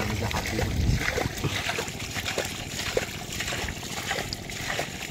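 Wet sounds on a mudflat: scattered small splashes, ticks and crackles from fish and shrimp stranded in shallow water and mud.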